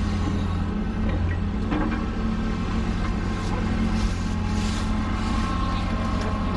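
John Deere hydraulic excavator's diesel engine running steadily while it digs, a constant low drone, with a few short hissing sounds in the second half.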